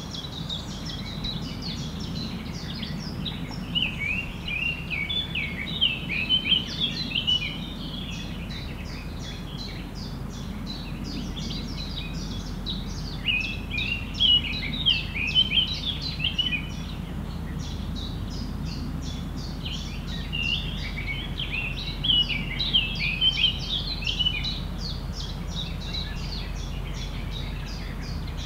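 Songbirds chirping and singing in a forest, many birds at once, with busier spells of song about a few seconds in, around the middle and near the end. A steady low rumble runs underneath.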